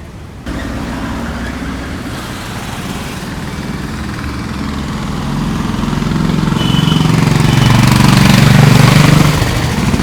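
A motor running steadily, starting abruptly, growing louder and easing off near the end.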